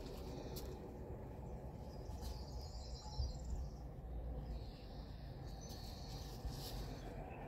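Faint outdoor ambience: high-pitched insect chirping in short stretches over a steady low rumble.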